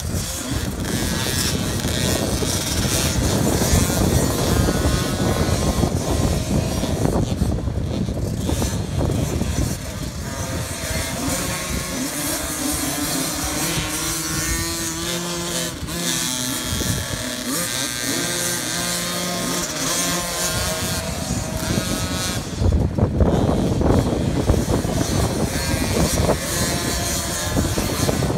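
Several small 50cc youth dirt bikes riding together, their engines revving up and down as they accelerate and slow through the corners, the pitch constantly rising and falling.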